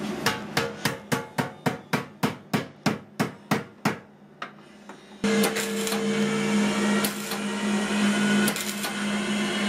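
A hammer beating on the rusty steel gas tank of a 1962 Allis-Chalmers B-1 garden tractor in a quick run of about four blows a second, lasting about four seconds. A little after, a power tool's motor starts and runs steadily.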